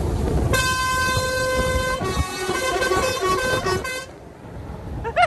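Lorry air horns sounded from inside the cab. One held blast of about a second and a half is followed by a run of short toots lasting about two seconds, over the low rumble of the engine and the road.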